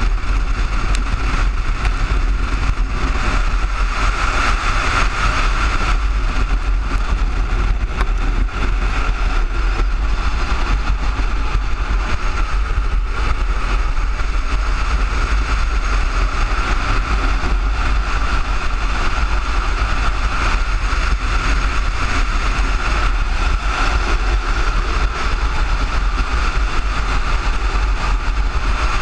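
Steady roar of wind buffeting the microphone and a Rogers Bros street luge's wheels rolling on asphalt at high speed, with a constant hum from the wheels.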